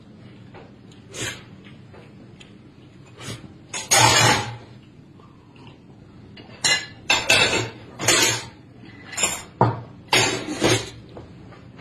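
Ceramic bowls, plates and chopsticks clinking and knocking on a dining table during a meal: a string of short, sharp clatters, the loudest about four seconds in and a quick run of them in the second half.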